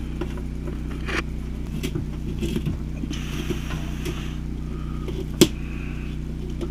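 Cables being handled and pushed through a hole in a wooden cabinet: light scraping and rustling with a couple of sharp knocks, the sharpest about five seconds in, over a steady low hum.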